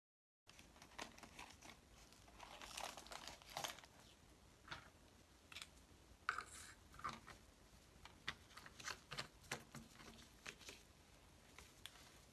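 Faint crinkling and scattered small plastic clicks as gloved hands handle a plastic spray bottle and its trigger sprayer head.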